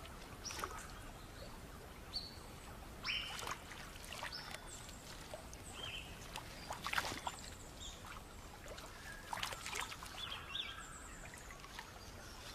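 Water splashing and dripping in irregular bursts as a platypus caught in a mesh net is handled, with short high chirps scattered through.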